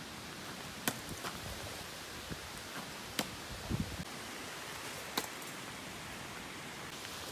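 A few short, sharp knocks over a steady hiss, from a small throwing hatchet being thrown at a tree trunk and striking it.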